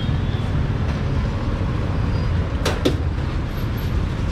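Steady low rumble of background noise, with two sharp clicks about a fifth of a second apart roughly two-thirds of the way through.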